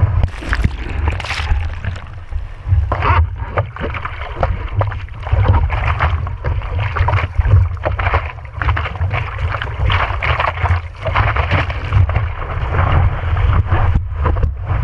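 Sea water rushing and splashing against a surfboard right under a board-mounted GoPro, with a heavy uneven low rumble of water and wind buffeting the camera. Irregular splashes come throughout.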